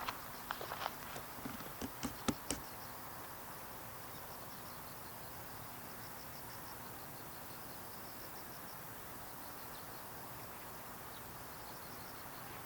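A handful of sharp taps in the first two or three seconds, then steady outdoor background noise with insects chirping in repeated short, high trills.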